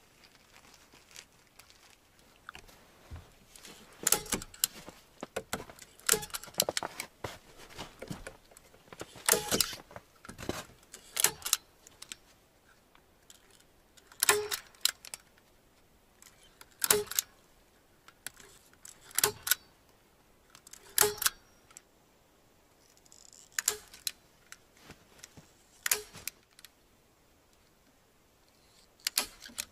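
Hand staple gun fastening plastic film to a log frame: about a dozen sharp metallic clacks, one every two to three seconds.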